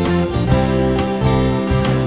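Instrumental passage of a folk-country song: acoustic guitar strummed with a band, with sustained notes over a steady beat and no singing.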